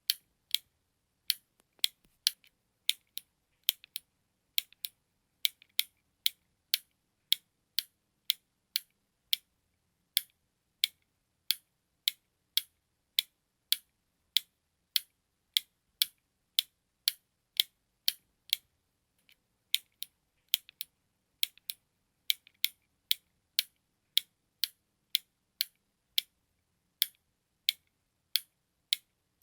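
Button clicking over and over, about two sharp, high clicks a second, with an occasional quick double click.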